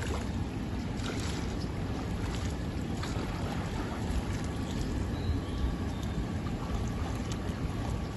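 Steady wind rumble on the microphone, with faint water splashes from a swimmer's breaststroke strokes.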